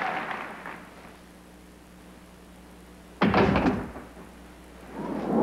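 Audience applause dies away, then about three seconds in comes a single loud slam of a heavy wooden door. Near the end a swell of noise rises.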